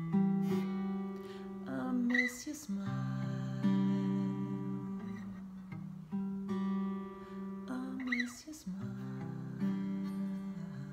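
Acoustic guitar strummed in an instrumental passage of a slow song, ringing chords that change every second or two.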